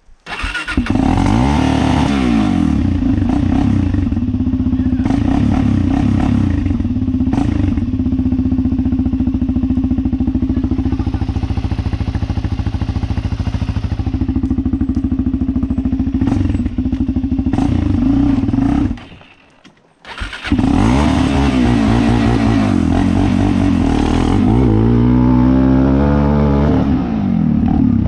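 Suzuki sport ATV engine running as the quad is ridden, its pitch rising and falling with the throttle. The sound breaks off for about a second near the two-thirds point, then the engine runs on with more revving.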